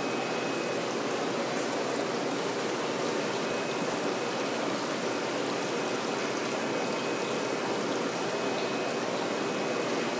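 Water pouring and splashing steadily into a fish-rearing tank from an inflow pipe, churning the surface into bubbles. It makes an even rushing sound.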